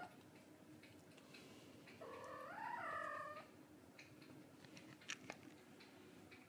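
Young kitten mewing once, a high cry that rises and then falls in pitch, about two seconds in. A few light clicks follow about five seconds in.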